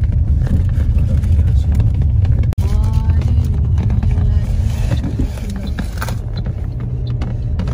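Steady low rumble of a car's engine and tyres heard inside the moving cabin, broken by a sudden brief dropout about two and a half seconds in.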